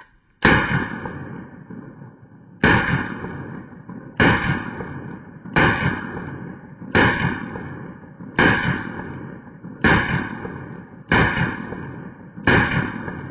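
Beretta 92 Brigadier 9mm pistol firing +P+ rounds: nine shots, about one and a half seconds apart, each followed by a long fading tail.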